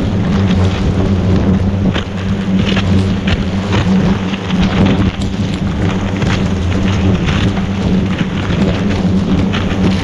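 A swarm of agitated ong vò vẽ hornets buzzing around their nest in a steady low drone, with scattered crackling and rustling as the nest and surrounding leaves are handled.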